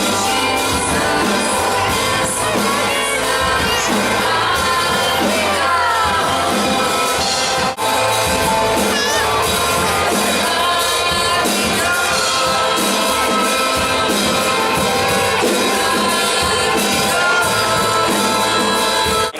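Pop music with singing and a steady beat.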